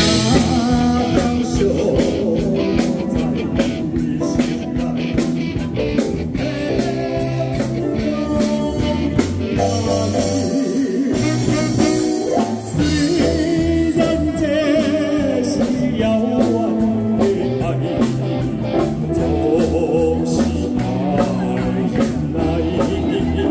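Live band playing a song with a steady drum beat, electric guitar, keyboard and saxophone, and a man singing over it through a microphone.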